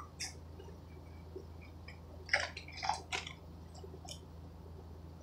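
A man eating close up: chewing, with a few short crackly crunches clustered about two to three seconds in, over a steady low hum.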